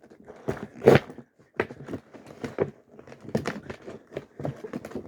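Cardboard advent calendar box being handled: irregular knocks, taps and rustles, the loudest about a second in.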